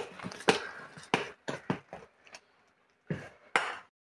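A utensil knocking and clinking against a steel pot of dosa batter as the batter is stirred: a quick irregular run of short taps, a short pause, then two louder knocks near the end.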